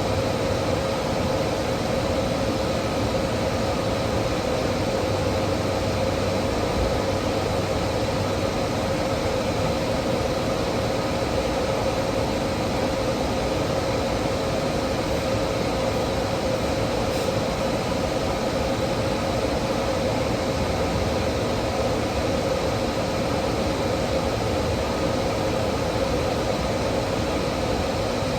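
Steady mechanical hum with a rushing noise and a constant mid-pitched tone, unchanging throughout.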